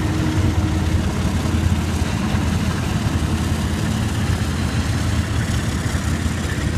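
Diesel freight locomotives passing close by, their engines running with a steady low rumble.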